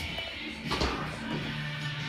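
Background music with held notes, and a brief thump just under a second in.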